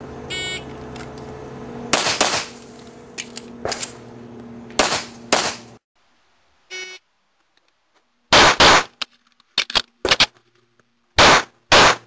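Shot-timer beep, then two pistol shots a fraction of a second apart, a few clicks of a magazine reload, and two more shots. The sequence plays twice: first with a steady hum under it, then again louder and sharper.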